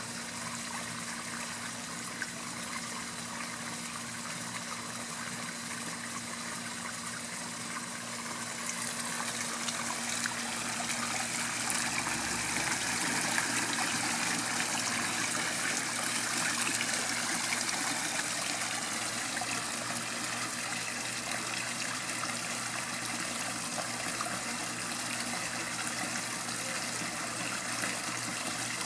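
Backyard pond waterfall: water spilling over stacked rocks and splashing into the pond in a steady trickling rush, growing louder about a third of the way through.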